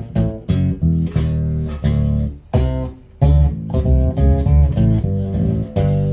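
Homemade five-string electric bass played through a Behringer bass amp head with its built-in harmonizer on: a run of plucked notes with a brief break about three seconds in.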